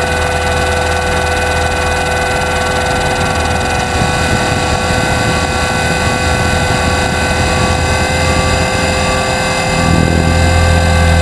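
500-size RC helicopter heard from its own onboard camera in flight: a steady multi-tone whine from the drivetrain over the low hum of the rotor, with airflow noise. About ten seconds in the low rotor hum swells and grows louder as the helicopter climbs.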